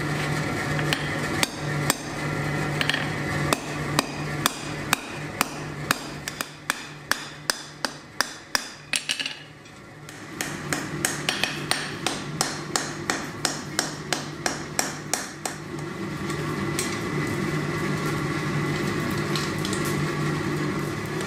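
Hand hammer striking hot metal on an anvil in runs of quick, ringing blows, at first peening over a red-hot steel rivet at the pivot of a pair of titanium tongs. A short lull comes about ten seconds in, then more hammer blows, with a steady low hum under them.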